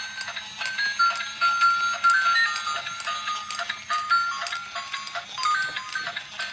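Music: a bright melody of short high notes, stepping up and down, over regular clicks.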